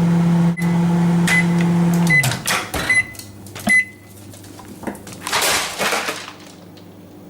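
Microwave oven humming steadily, then winding down as the cycle ends, with a run of short high beeps about 0.8 s apart signalling it has finished. Clicks and a rustling clatter follow a few seconds later, as of the door opening and the dish being handled.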